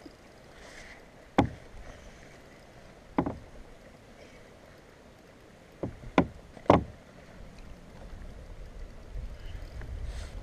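Five sharp knocks against a kayak's hull at uneven intervals, the last three close together just past the middle, over a low wash of water. A low rumble builds near the end.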